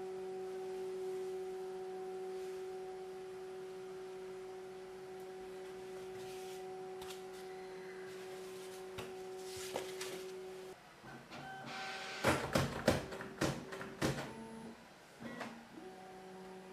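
Bambu Lab H2D 3D printer running its startup calibration: its motors give a steady hum with a few held tones for about ten seconds, which stops suddenly. Then come short tones that step in pitch as the axes move, and a burst of sharp clicks and knocks about twelve to fourteen seconds in.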